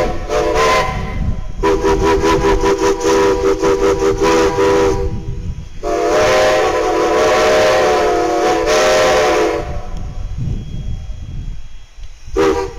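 Steam locomotive whistles blowing: a short blast at the start, two long blasts of about three to four seconds each, and a short toot near the end, over the low rumble of the standing engines.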